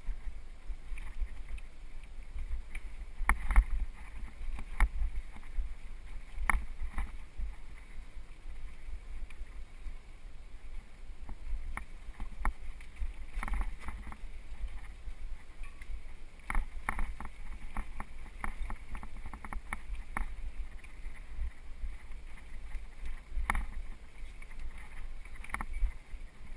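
Mountain bike jolting along a rough dirt trail, picked up by a camera fixed to the bike: irregular sharp knocks and rattles from bumps over a steady low rumble.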